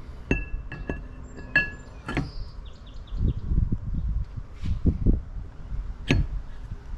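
Metal clinking as a steel outboard flywheel is handled and lowered onto its crankshaft. Three sharp clinks with a short bright ring come in the first two seconds, then dull knocks, and one sharp clack about six seconds in.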